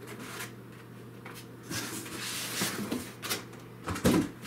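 Cardboard box and foam packing scraping and rustling as a portable power station is pulled out of its packaging, with a sharp thump about four seconds in.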